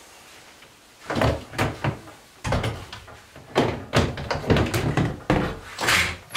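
Plastic storage tote knocking and scraping against a plastic shelf as it is handled and lifted off, a series of irregular knocks and bumps starting about a second in.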